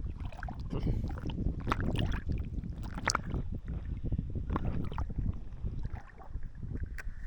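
Water splashing and sloshing unevenly, with many short knocks mixed in.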